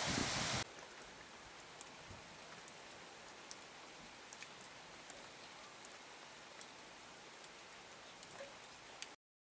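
Rushing water that cuts off abruptly just over half a second in. It gives way to a faint hiss with scattered drops landing at irregular intervals, like light rain.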